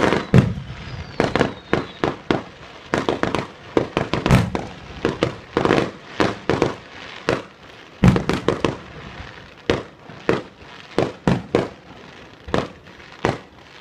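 Fireworks going off in rapid, irregular succession: dozens of sharp bangs and cracks, several a second, some overlapping.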